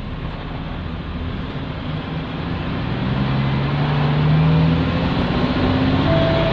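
Isuzu K-U31L bus's PE6H inline-six diesel engine heard from inside the bus while it drives and accelerates. The engine note climbs and gets louder from about three seconds in, then holds at a higher pitch.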